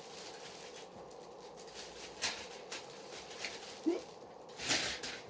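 Plastic parts bags and sprues of a model kit rustling and clicking as they are handled. Sharp clicks come between about two and three and a half seconds in, then a short squeak near four seconds and a louder rustle near the end.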